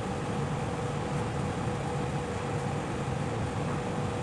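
Steady machine hum: a constant rushing noise with a low rumble and a faint steady whine, unchanging throughout.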